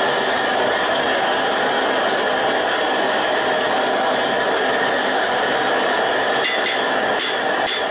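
Propane gas forge burner running with a steady hiss. Near the end come a few light metallic clinks as a hot bar is taken from the forge and laid on the anvil.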